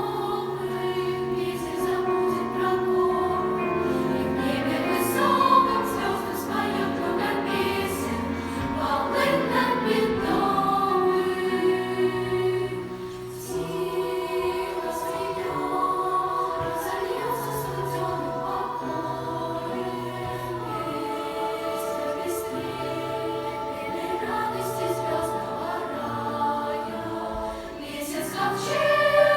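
A choir singing in several parts, holding sustained chords over a low bass line.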